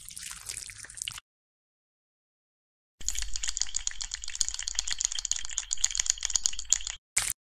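Crab-scuttling sound effect: a rapid, dry clicking rattle that starts about three seconds in after a stretch of dead silence, runs about four seconds, cuts off suddenly, and is followed by two short bursts near the end.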